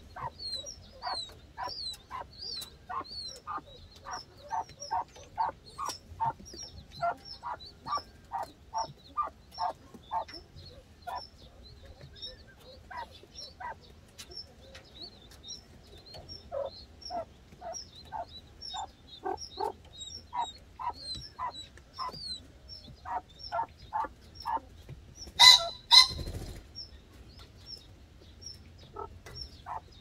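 Common pheasant hen with her newly hatched chicks: runs of short low clucks, about two a second with pauses, over many thin high peeps from the chicks. Two loud sharp sounds come close together near the end.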